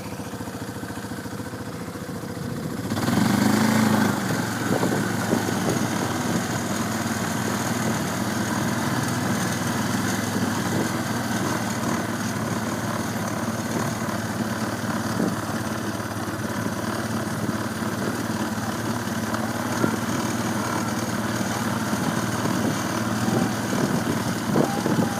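A small vehicle engine running steadily, growing louder about three seconds in and then holding that level.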